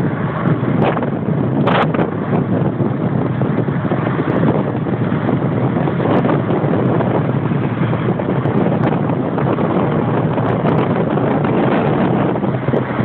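A car driving at a steady speed, heard from inside the cabin: a continuous rumble of tyres on rough tarmac and engine noise, with some wind noise.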